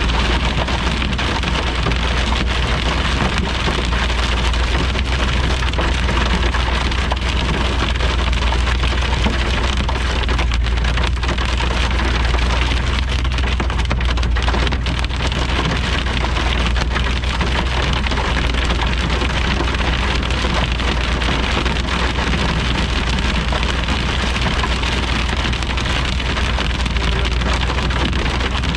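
Heavy rain coming down steadily in a thunderstorm, a dense even hiss with a steady low rumble underneath.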